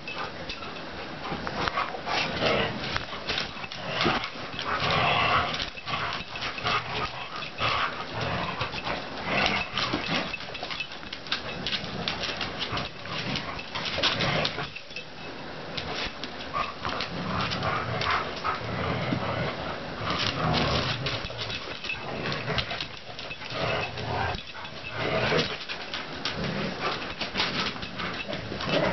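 Two dogs, a Labrador retriever and a border collie, rough-playing over a toy: dog vocalizations mixed with scuffling, in irregular bursts.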